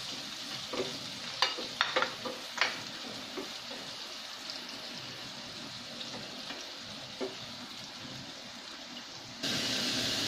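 Chopped tomatoes sizzling in oil in a frying pan, with a few sharp knocks and scrapes of a spatula against the pan in the first three seconds and once more about seven seconds in. About nine seconds in the sizzle jumps suddenly louder, with ground pork now frying in the pan.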